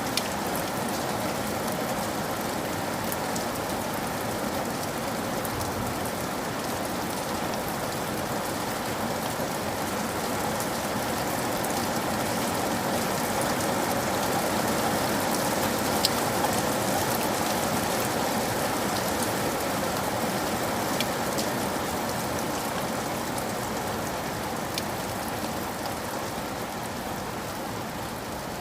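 Steady rain falling on a roof, with scattered sharper drip ticks among the even patter. It swells a little in the middle, with one louder tick around the middle.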